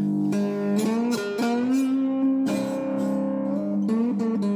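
Cigar box guitar being played: picked notes that slide between pitches over a steadily ringing low string.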